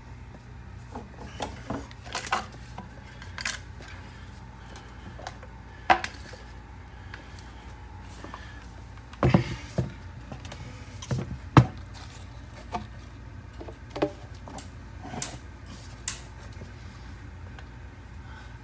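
Scattered clicks, knocks and light clatter of a sump pump and its pipe fittings being handled and refitted in the pit, with the loudest knocks about six, nine and eleven seconds in. A steady low hum sits underneath.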